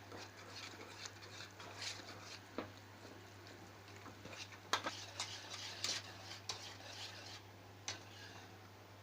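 A whisk stirring béchamel sauce (milk being whisked into a butter-and-flour roux) in a pot, with irregular scraping and clinks against the pot and a few sharper knocks around the middle. A low steady hum runs underneath.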